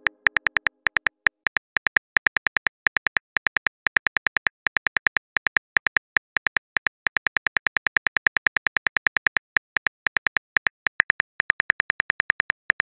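Phone keyboard typing sound effect: a rapid, even run of short, identical clicks, several a second, as a text message is typed out.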